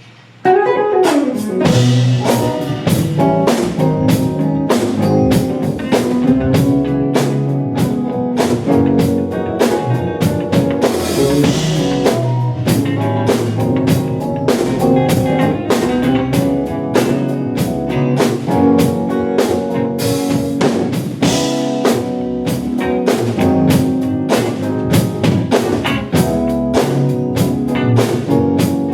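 A band plays a groove: a drum kit beat with guitar and bass, steady throughout. It opens with a falling slide in the first second or two.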